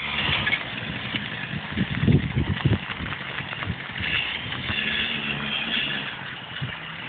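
Small 100cc quad bike engine running as the quad is ridden across a muddy field, its note growing fainter near the end.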